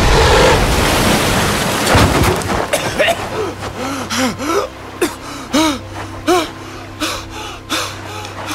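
Audio-drama sound effects: a wash of surf for the first two seconds, then a man's short, breathless coughs and groaning gasps, repeated about once a second, as if cast up and struggling for breath.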